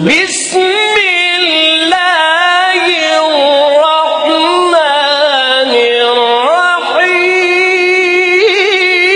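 A single voice singing a slow, ornamented melody of long held notes that slide from pitch to pitch, in a devotional chant style.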